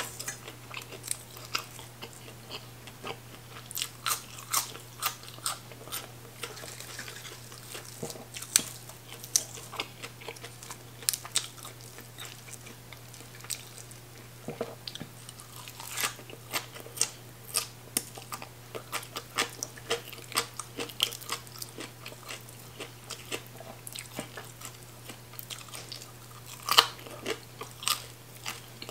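Crunching and chewing of green papaya salad and raw greens, many irregular crisp bites, with a steady low hum underneath.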